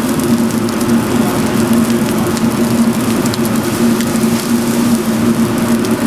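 Fried rice sizzling in a hot wok, with scattered sharp ticks over a steady hum.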